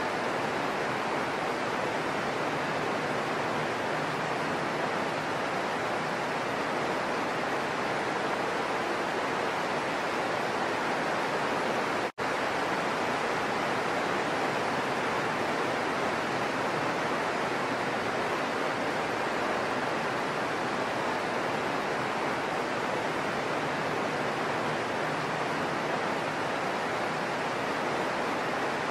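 Heavy rain falling steadily, an even hiss with no thunder. It cuts out for an instant about twelve seconds in.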